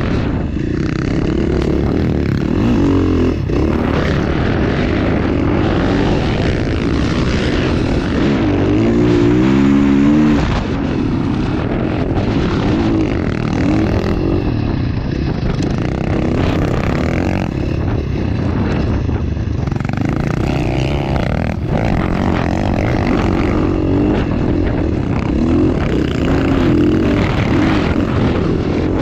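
KTM 450 dirt bike's single-cylinder four-stroke engine running hard at speed, its pitch rising and falling as the throttle is worked, with a sharp climb in revs about nine seconds in. A steady rushing noise runs underneath.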